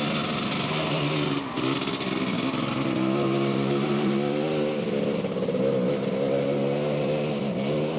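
Enduro motorcycle engine revving hard as the bike ploughs through a water crossing, with water spraying. The engine note dips briefly about a second and a half in, then climbs and wavers as the rider pulls through.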